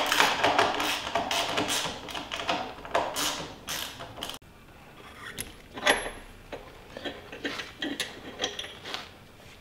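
Socket ratchet wrench clicking in quick runs as bolts on a steel kart frame are tightened. It stops abruptly about four seconds in, and only scattered light metal clinks and knocks follow.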